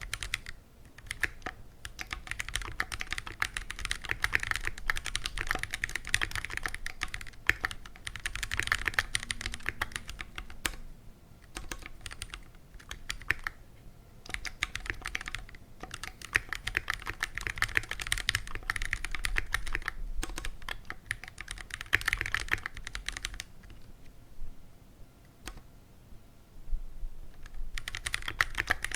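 Typing on a stock, unmodified Keychron Q1 aluminium mechanical keyboard with Phantom Red linear switches. Fast runs of keystrokes, broken by short pauses about a third of the way in and again near the end.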